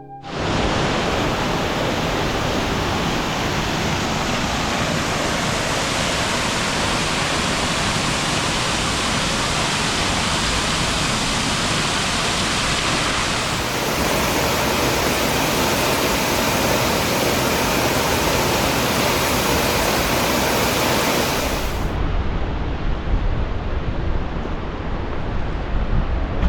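Waterfall roaring close by: a loud, steady rush of falling water. About 22 s in, the high rush falls away and a lower, uneven rumble of wind on the microphone takes over.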